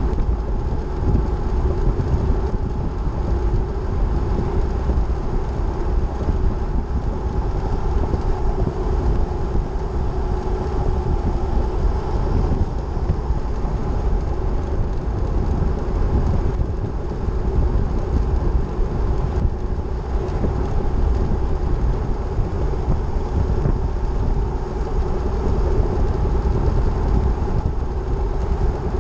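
Car driving steadily at highway speed on paved road: continuous engine and tyre noise with a deep rumble and a faint steady drone.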